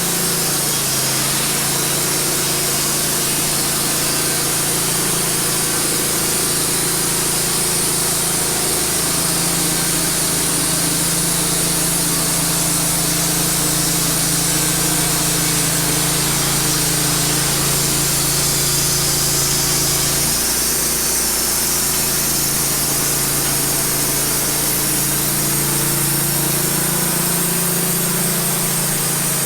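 Wood-Mizer LT15 band sawmill running steadily, its engine humming while the band blade saws through a cedar log, with a strong hiss from the cut. The engine note briefly dips about twenty seconds in.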